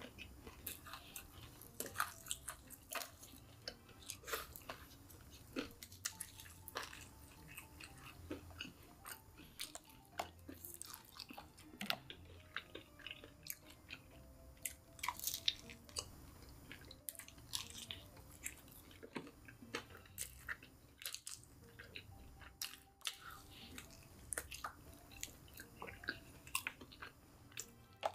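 Chewing of crispy breaded KFC fried chicken: many short, irregular crunches and mouth clicks throughout.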